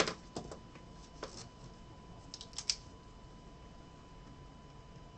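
Light handling of trading cards and a retractable gel pen: a few soft taps and clicks, then a quick cluster of sharp clicks about two and a half seconds in, over a faint steady hum.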